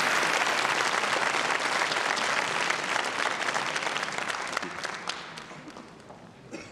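Audience applauding, thick clapping that thins out and dies away over the last couple of seconds.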